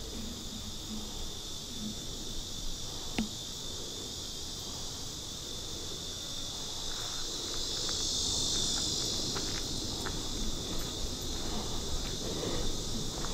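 Steady high-pitched chorus of insects in woodland, swelling louder a little past the middle, with a few faint ticks underneath.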